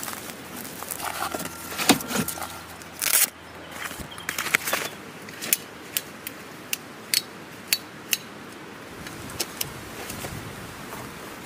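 Scattered sharp clicks and light clinks of camping gear being handled, with a short rustle about three seconds in.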